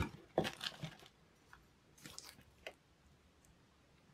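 Plastic wrapping and packing being handled while items are lifted out of a cardboard box, crinkling and crackling. A dense burst of crackle in the first second is the loudest part, followed by a few scattered clicks and rustles.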